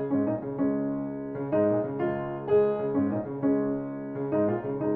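Background piano music, a melody of single notes and chords played at a steady, unhurried pace.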